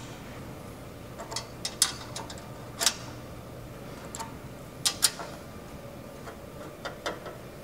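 9/16-inch hand socket ratchet tightening a hex cap bolt on a steel bench frame: scattered sharp clicks, a second or so apart and some in quick pairs, as the handle is worked.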